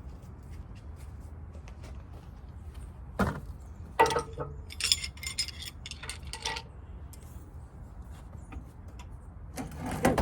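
Scattered metallic clinks and clanks of tools and heavy metal parts being handled, some briefly ringing, with a louder cluster of clanks near the end, over a steady low rumble.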